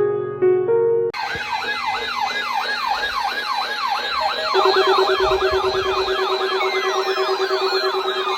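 Piano music cuts off about a second in and a layered electronic siren starts abruptly: a wail sweeping up and down about three times a second, quickening, joined about halfway by a steady pulsing low tone, with rising glides near the end.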